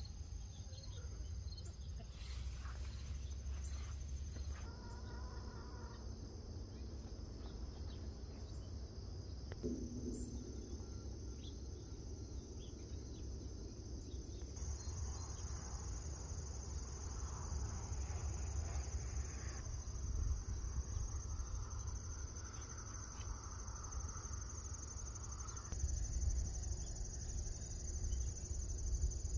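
Outdoor late-summer chorus of crickets and other insects trilling steadily in a high, unbroken band, growing stronger about halfway through, with a low rumble underneath.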